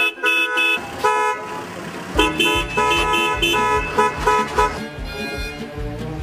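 Car horn honking in a quick run of short toots, about four or five a second, stopping a little after a second in. Music with a steady beat comes in from about two seconds in.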